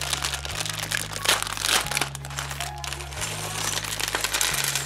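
Thin plastic Lego polybag crinkling as hands handle and open it, over background music with a steady bass line.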